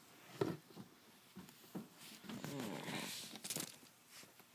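Close handling noises: a sharp knock about half a second in, then a stretch of rubbing and rustling, as the camera is shifted beside the loaded Lego grenade.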